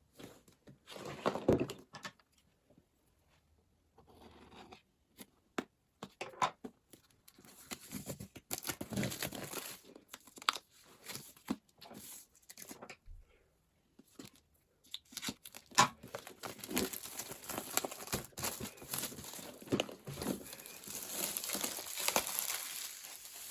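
Packaging being torn open and crinkled by hand, in irregular crackling bursts with sharp clicks that grow busier about a third of the way in and keep up through the second half.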